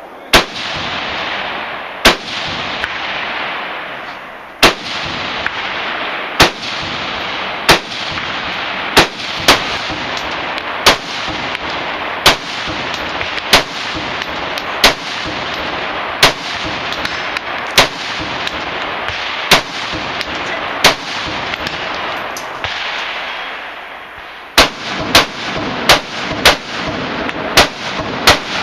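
Semi-automatic rifle shots, about two dozen. Single shots a second or more apart give way near the end to a quicker string, over a steady hiss.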